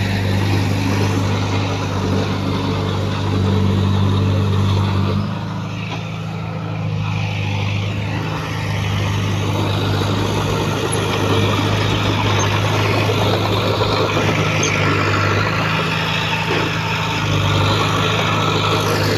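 Heavy diesel engine of earthmoving machinery running with a steady, deep hum, easing off briefly about five seconds in and then picking up again.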